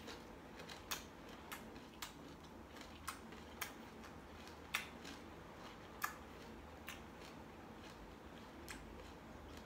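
Someone chewing a crisp Thai ambarella fruit dipped in chili salt: faint, sharp crunching clicks at uneven intervals, about one every half second to a second.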